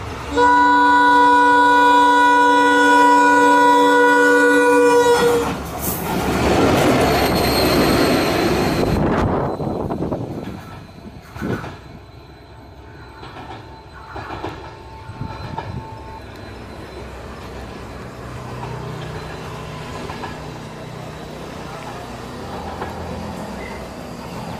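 Sri Lanka Railways Class M11 diesel locomotive sounding its multi-tone air horn in one steady blast of about five seconds, then passing close by with a loud rush of engine and wheel noise that fades within a few seconds. Quieter rail noise with a few sharp clacks follows, then a low steady engine hum.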